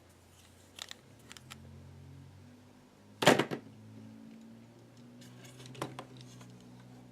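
Hard plastic toy pieces being handled: a few light clicks and one sharper knock about three seconds in.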